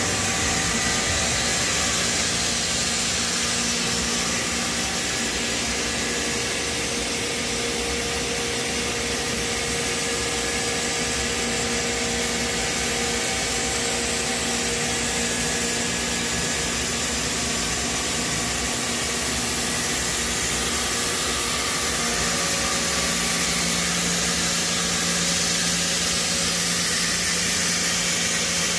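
Steady hum and hiss of powered-up CNC shop machinery, with a few constant tones held throughout; a low hum shifts in pitch late on.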